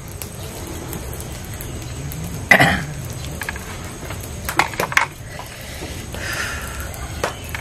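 A few sharp snips and clicks from kitchen scissors cutting a steamed chicken and being set down, with one short cough-like throat sound about two and a half seconds in, over steady background noise.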